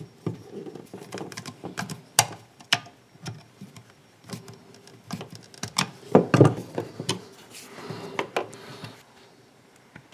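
A plastic cooker switch faceplate and its stiff 6 mm twin-and-earth cables being handled and pushed into a wall back box: irregular clicks, taps and scrapes, with a louder cluster of knocks about six seconds in.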